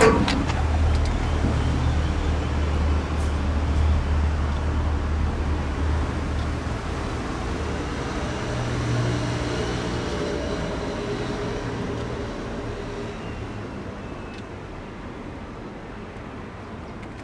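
Low rumble of passing traffic by the railway, strongest at first and fading steadily away, with a faint whine through the middle.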